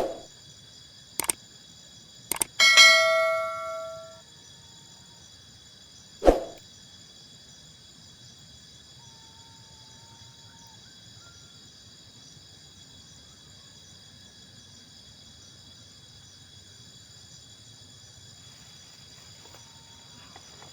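A few sharp knocks, then a metal object struck and ringing with a clear metallic tone that dies away over about a second and a half, followed by one more knock a couple of seconds later. Insects chirr steadily in the background throughout.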